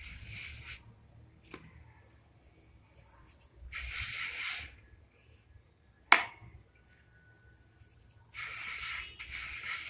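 A hand rubbing over rolled-out dough on a wooden rolling board, heard as three short bursts of rubbing noise, with one sharp tap a little past the middle.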